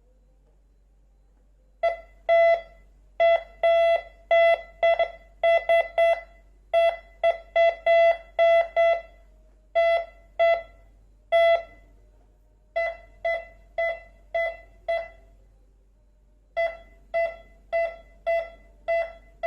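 MD-4030 metal detector beeping as it picks up metal near its search coil during a test of its detection range. It gives short single-pitched beeps, about two a second, in irregular runs with brief gaps. The beeps start about two seconds in and are softer in the second half.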